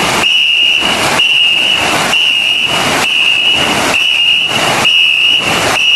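Ngo racing-boat crew paddling in unison, the paddles striking the water together about once a second, over a shrill whistle held in long blasts that break briefly at each stroke to keep the pace.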